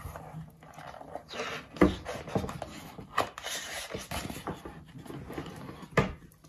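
Pages of a large hardcover picture book being turned by hand: paper rustling and sliding, with a sharp slap about two seconds in and another near the end as pages fall open.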